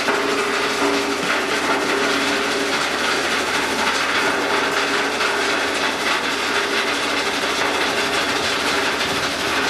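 Sand-processing plant machinery running with a steady, dense mechanical clatter and a faint steady hum.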